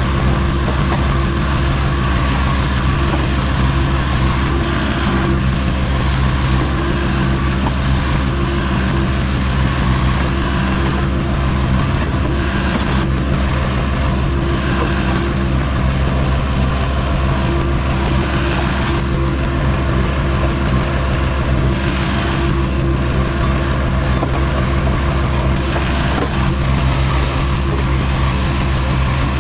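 Vermeer CTX160 mini track loader's engine running steadily under work as it digs at a stump with its stump bucket.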